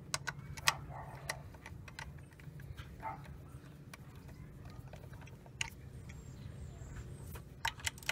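Scattered sharp metal clicks and taps of a ratchet and 10 mm socket being fitted and worked on an ignition coil mounting bolt, the loudest about a second in and a quick pair near the end, over a steady low hum.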